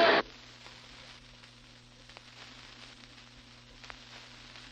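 Recorded studio audience laughter cuts off abruptly just after the start, leaving a gap of faint hiss and low steady hum with a few soft clicks before the next laugh track.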